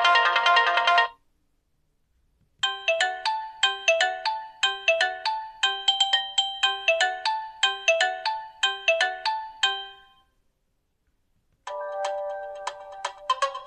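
Nokia 2780 Flip default ringtones playing one after another. One ends about a second in; a tune of short, quick notes, about four a second, follows until about ten seconds in; after a short silence another ringtone starts near the end.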